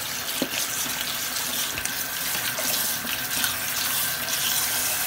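Kitchen tap running steadily into a plastic colander of cut cucumber chunks in a stainless steel sink, the water splashing over the pieces as they are rinsed by hand to wash off the salt.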